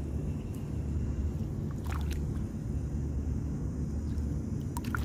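Steady low rumble, with a few faint clicks and scrapes as a bare hand digs through wet tidal mud and shells for clams.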